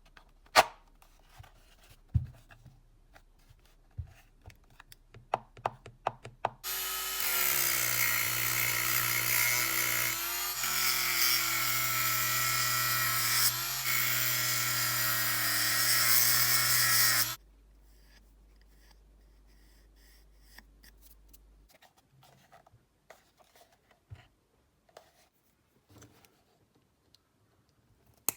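Hitachi 24V cordless drill motor running steadily for about ten seconds, briefly easing off twice, with small handling clicks before and after.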